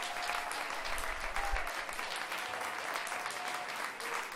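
Crowd applause, dense steady clapping with a few long cheers over it.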